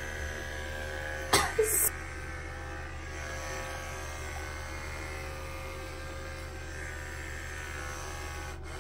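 Electric hair clippers with a guard comb buzzing steadily as they run through short hair. A brief loud burst comes about a second and a half in.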